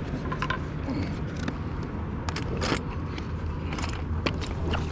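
Small boat's motor running steadily with a low drone, with a few short knocks or splashes over it.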